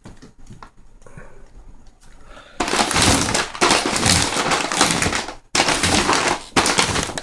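Loud crackling, rustling handling noise of a firework cake and its packaging being picked up and moved. It starts about two and a half seconds in and breaks off briefly near five and a half seconds.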